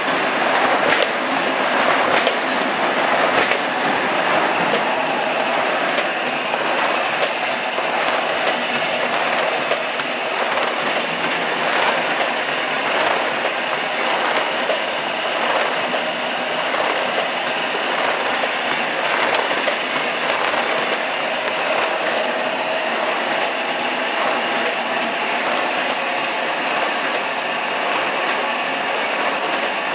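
Semi-automatic chain-fed rotary die-cutter with a vibrating waste-stripper, cutting corrugated carton board: a loud, steady mechanical clatter with a faint regular pulse.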